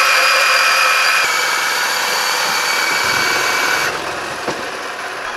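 Small brushed electric motor spinning a pair of KFC paper bucket rotors on a carbon rod, a steady high whine whose pitch steps down slightly about a second in. The whine cuts off about four seconds in, leaving a fainter noise and a click.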